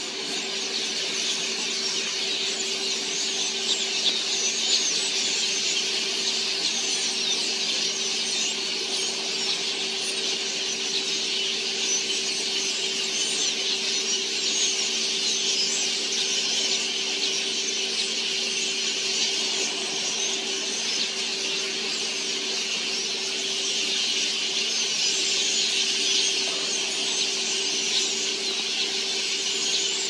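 A large flock of red-billed queleas chattering without a break, a dense high twittering, over a steady low hum.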